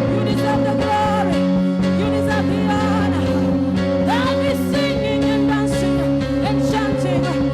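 Gospel worship music: sustained chords that change about a second in and again near five seconds, with singing voices gliding over them.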